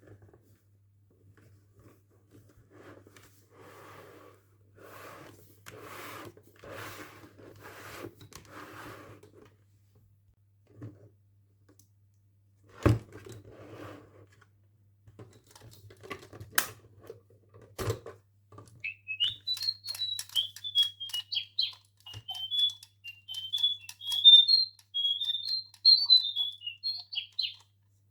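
Plastic packaging rustling in bursts, then a few sharp knocks. In the last third an electronic toy bird starts chirping: a high, wavering tweet broken by clicks.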